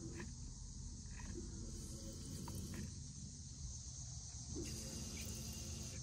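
Faint steady running of the Porsche 944's new electric fuel pump, powered through a jumper wire across the DME relay's terminals 30 and 87B, with a steady high hiss over it and a few faint ticks.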